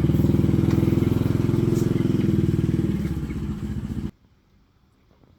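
D8 single-cylinder diesel engine running with a steady, rapid beat, easing a little after about three seconds, then cutting off suddenly about four seconds in.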